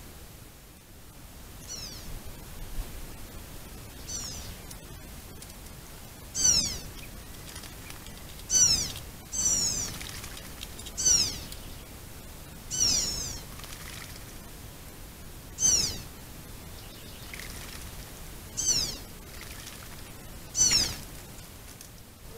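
White-naped jay (gralha-cancã) calling over and over: a short, loud, downward-sliding call repeated about every two seconds, louder from about six seconds in.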